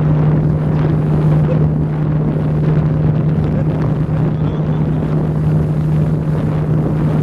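Speedboat engine running at a steady pitch while under way, with wind buffeting the microphone.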